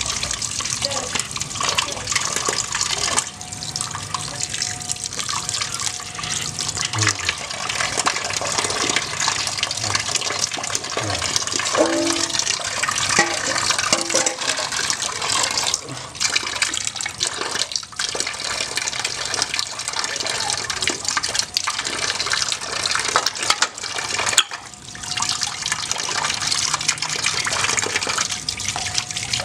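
Tap water pouring steadily in a thin stream and splashing into a stainless steel pot of water, with extra splashes from hands working snails in the water.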